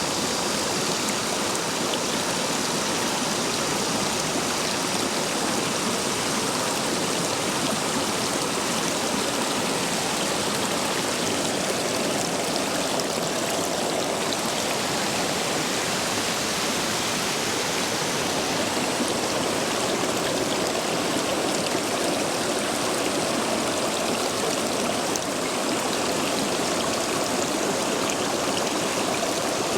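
Stream water rushing steadily over and between stepping stones, swollen after heavy rain.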